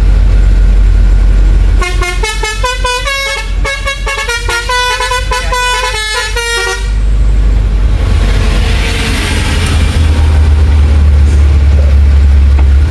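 Basuri multi-tone 'telolet' horn playing a tune of stepped notes, starting about two seconds in and lasting about five seconds, over the steady low rumble of the truck's engine heard from inside the cab.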